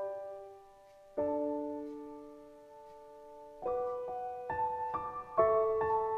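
Soft solo piano music. Slow chords are struck and left to ring and fade, then from about four seconds in shorter notes follow one another as a melody.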